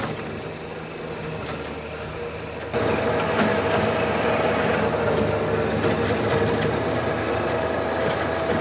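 John Deere 1025R subcompact tractor's three-cylinder diesel running steadily under load while its rear PTO-driven King Kutter rotary tiller churns soil. The sound jumps louder and closer about a third of the way in.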